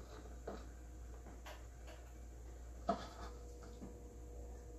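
A few soft clicks and taps of hands picking sliced onion and rosemary from a small bowl and laying them on the meat, the loudest about three seconds in, over a low steady hum.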